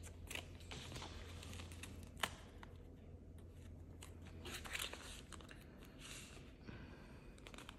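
Hands handling polymer banknotes, a card and a clear plastic binder pocket: faint rustling and crinkling with scattered small clicks, one sharper tick about two seconds in.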